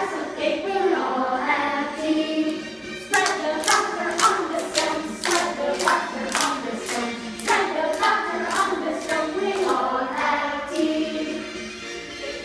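A group of children singing a song together. About three seconds in, steady rhythmic hand clapping joins in, about two or three claps a second, and it stops shortly before the end while the singing goes on.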